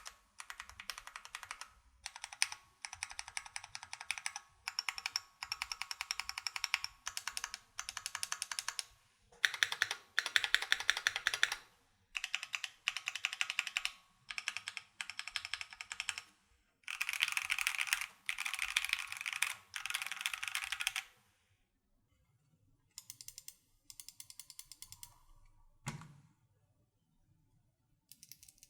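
Typing on a Keychron Q1 mechanical keyboard with factory pre-lubed Gateron G Phantom switches, in quick runs of keystrokes with short pauses between them. The first part is on tactile Brown switches; after a pause about three-quarters of the way through, lighter typing begins on clicky Blue switches, with one low thud shortly after.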